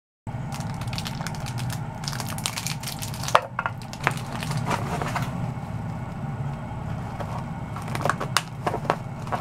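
Plastic wrap and a foam meat tray crinkling and clicking as they are handled, in irregular crackles and a few sharp clicks, over a steady low hum.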